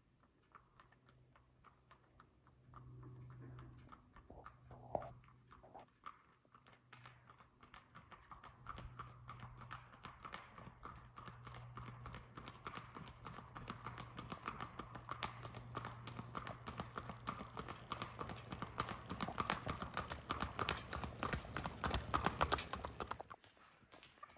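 Hoofbeats of a horse pulling a two-wheeled cart along a paved road, clip-clopping steadily and growing louder as it approaches, then cutting off abruptly about a second before the end.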